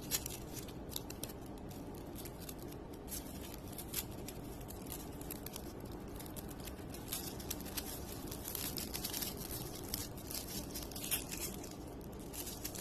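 Protective film being peeled off a clock case panel: faint, scattered crackling and small ticks over a steady background hiss.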